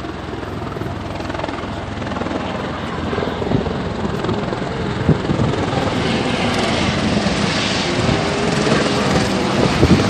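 Strong wind blowing over a phone's microphone: a continuous rumbling rush that slowly grows louder.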